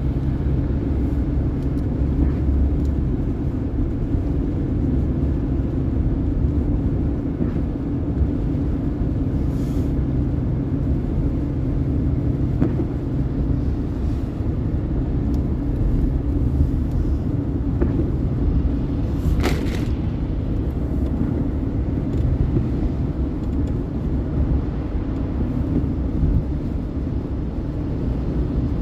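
Car driving at highway speed: a steady low road and engine rumble, with a brief hiss about two-thirds of the way through.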